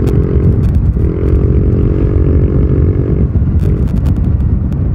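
Motorcycle with a loud exhaust running at speed and gaining speed, its engine note steady apart from brief dips about a second in and a little after three seconds, over heavy wind rumble on the microphone.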